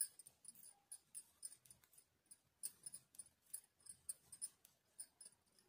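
Knitting needles clicking faintly as a row is purled: a quick, irregular run of small ticks, several a second.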